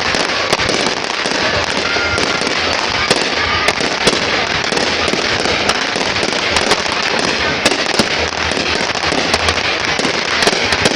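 Fireworks going off without a break: a dense crackle packed with many sharp pops.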